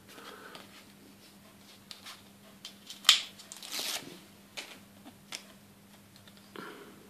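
Soft rustling of a small paper picture card being handled and the picture taken off it, with a few light clicks scattered through; the longest rustle comes around the middle.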